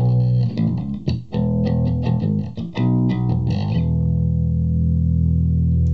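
Fender '62 reissue Jazz Bass played through an Orange Terror Bass 1000-watt valve/solid-state hybrid head into a bass cabinet, with the EQ set flat at zero: a run of quickly plucked low notes, then a final note struck and left to ring for about two seconds.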